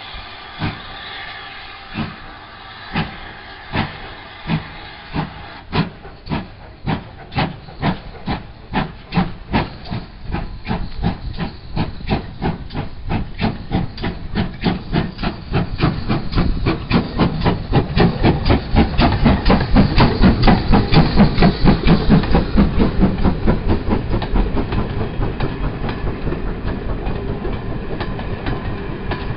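GWR 5205-class 2-8-0T steam tank locomotive pulling away with steam hissing, its exhaust beats quickening from a slow, spaced chuff to a rapid beat as it accelerates past, loudest about twenty seconds in. Near the end the beat gives way to the carriages rolling by with wheel clatter.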